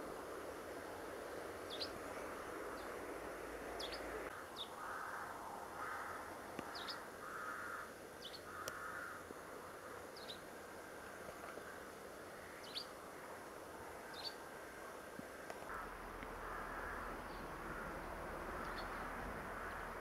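Outdoor bird calls: short, high chirps every second or two, with runs of harsh, raspy calls about five to nine seconds in and again near the end, over a faint steady background hum.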